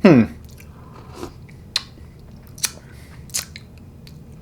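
A short falling vocal hum at the start, then mouth sounds of someone tasting a cookies-and-cream milkshake: three sharp clicks of chewing or lip smacking, spaced under a second apart.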